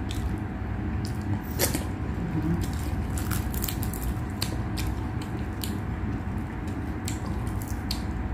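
Close-up eating sounds: wet chewing and mouth clicks, and soft squishes as bare fingers pick apart fish in a thick sauce. A steady low hum runs underneath.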